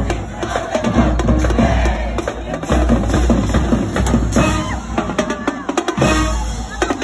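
Marching band playing a pep tune in the stands: a loud, driving drumline beat with heavy bass drums under the horns.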